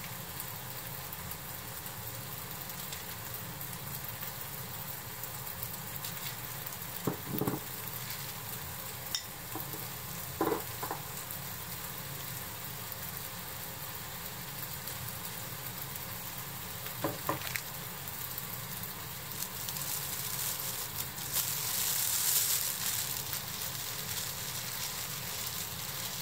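Steady low hiss with a few brief soft knocks from measuring spoons, then a clear plastic bag rustling for a few seconds near the end as it is handled to mix the pickling liquid.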